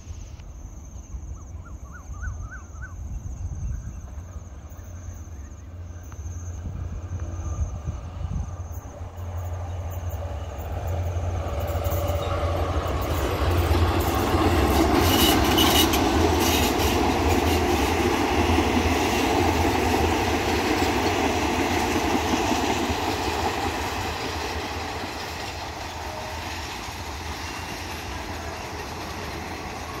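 Thai State Railway diesel-hauled local passenger train passing. Its low rumble builds as it approaches, is loudest about halfway through with a run of sharp clicks from the wheels on the rails, then fades slowly as the train moves away.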